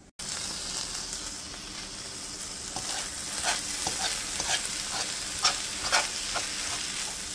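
Raw ground meat sizzling in a nonstick frying pan as a metal fork breaks it up, with scattered clicks and scrapes of the fork against the pan from a few seconds in.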